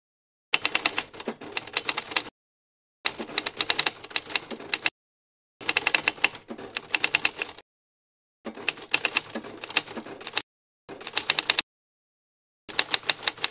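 Typewriter sound effect: rapid key clacks in six bursts of up to two seconds each, with dead silence between the bursts.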